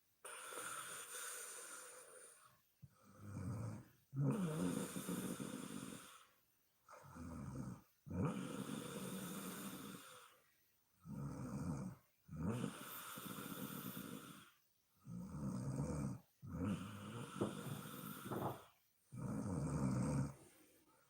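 A woman snoring in her sleep: about five breath cycles, each a shorter snore followed by a longer one, with short quiet gaps between them and a fluttering rasp in each breath.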